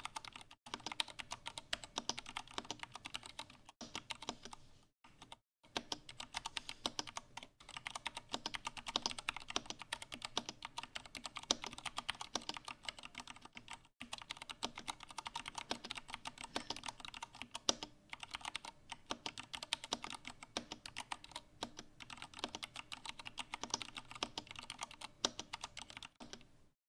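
Continuous typing on an IQUNIX A80 Explorer mechanical keyboard with Cherry MX Brown switches: rapid, uneven key clicks and clacks, with a few short pauses.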